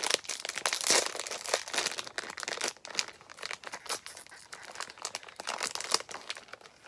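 Crinkly plastic snack wrapper being torn open and peeled off a small packaged cupcake: a dense run of crackles, loudest about a second in.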